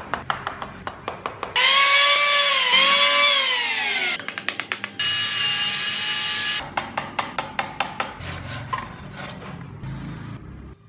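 Woodworking tools cutting into wood: fast even tapping or clicking, broken by two loud stretches of a power tool, first a whine that sinks in pitch, then a steady high hiss, each starting and stopping abruptly.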